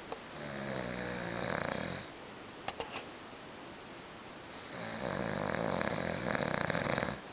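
A man snoring in his sleep: two long snores, the second starting a couple of seconds after the first ends and lasting a little longer. Three short clicks fall in the pause between them.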